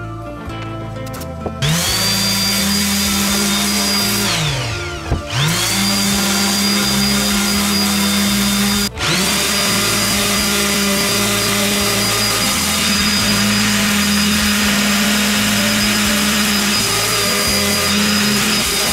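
Electric power tool motor spinning up to a steady high whine, winding down with falling pitch, then starting again and running on with a brief cut-out partway through, over background music.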